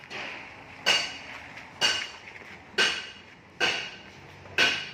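Hammer striking metal at a steady pace of about one blow a second. Each blow rings briefly.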